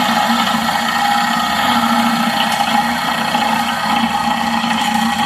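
Stump grinder running steadily at working speed, its engine and cutting wheel grinding into tree roots.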